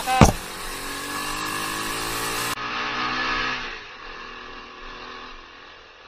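Motorcycle engine running steadily while riding, with a sharp knock just after the start; the sound fades away near the end.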